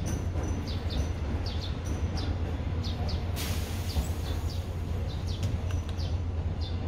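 Small birds chirping over and over in short falling notes above a steady low rumble, with a burst of hiss about three and a half seconds in.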